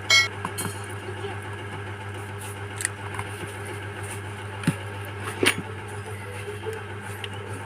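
A few sharp clicks and taps of small tools and phone parts being handled during a phone teardown, over a steady low electrical hum.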